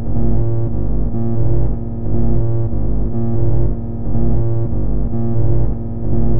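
Max/MSP wavetable synthesizer drone, its waveform a Jitter jit.bfg noise.cell basis function graph, two voices through a low-pass filter. A low held chord, rich in overtones, swells and dips in loudness about once a second.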